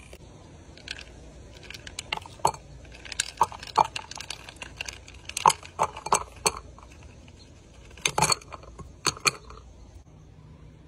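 Ice cubes clinking sharply against a glass in irregular bursts, several strikes at a time, loudest about halfway through and again near the end.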